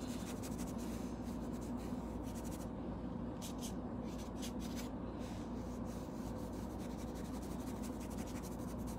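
Paintbrush strokes scratching on a fabric tool bag as acrylic paint is brushed on, coming as short irregular strokes, over a steady low hum.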